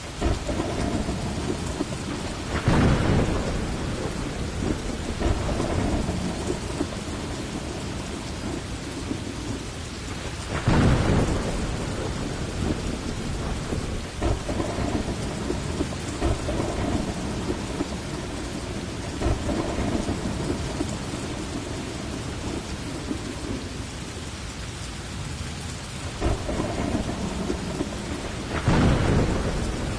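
Heavy rain falling steadily in a thunderstorm, with thunder rumbling three times: about three seconds in, about eleven seconds in, and near the end.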